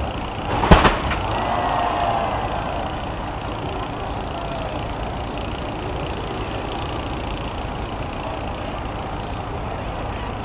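Heavy vehicles running steadily, with one sharp loud bang a little under a second in, followed by a faint whine.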